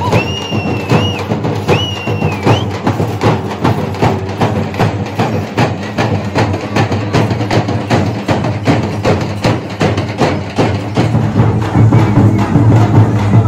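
Fast teenmaar drumming on dappu frame drums: a steady, rapid run of beats that grows heavier in the low end near the end. Two shrill whistle notes sound in the first few seconds.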